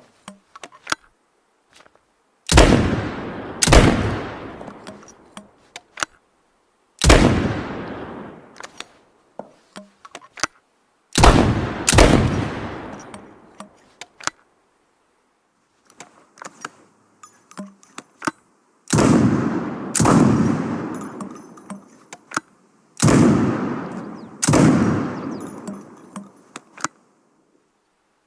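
Makeshift double-barrelled shotgun sound effect: nine loud blasts, mostly in pairs about a second apart, each dying away over a second or two, with small mechanical clicks between the shots.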